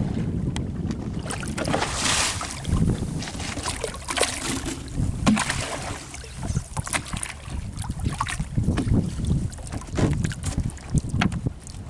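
Wind buffeting the microphone over a low rumble. Water splashes and hisses, with scattered knocks and clatter against the side of a small wooden fishing boat, as a fish is hauled by hand out of the sea over the gunwale.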